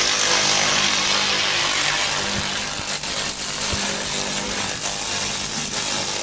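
Fiber laser cleaning beam scanning across rusted steel, a loud, steady hiss and crackle as the rust is burned off the plate, with a faint steady hum beneath.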